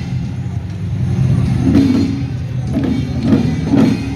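Festival street drums beating a few irregular strokes over a steady low rumble.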